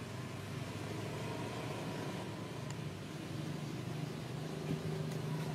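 A motor running steadily: an even low hum under a wash of background noise.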